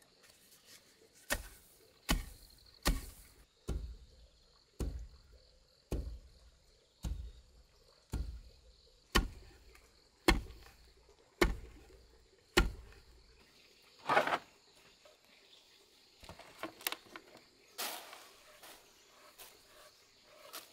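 Pounding paddy rice in a wooden mortar to hull it: a dull thud about once a second, a dozen strokes in all. Then a few lighter knocks and scrapes as the heavy wooden mortar is shifted and tipped over.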